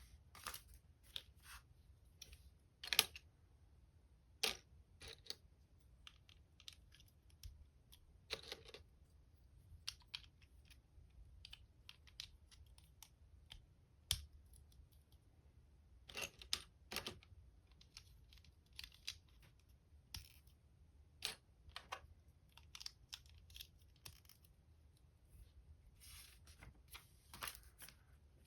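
Small plastic LEGO pieces being handled and pressed together by hand: irregular, scattered clicks and short rustles, a few sharper snaps among them.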